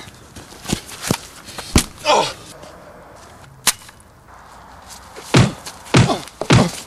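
Fistfight sound effects: a series of sharp punch hits and whooshes, scattered through the first half, with three heavy blows in quick succession near the end.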